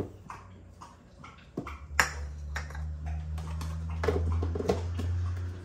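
Plastic measuring cup scooping white sugar from a plastic container and tipping it into a mixing bowl: a few light clicks and taps, with one sharper knock about two seconds in. A low steady hum lies underneath.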